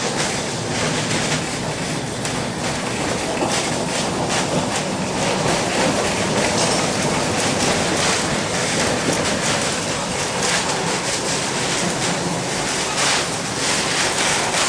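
1906 John Stephenson-built electric streetcar running along its track, heard from inside the wooden car: a steady rumble of wheels on rail with frequent clicks and rattles.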